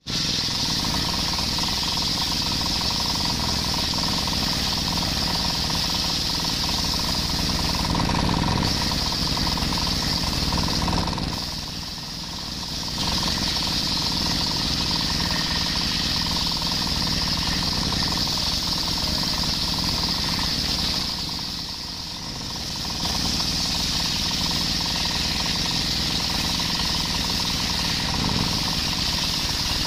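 Belt-driven table circular saw ripping a coconut-wood log into beams: a steady loud run of engine and blade with a high cutting whine. It eases off briefly twice.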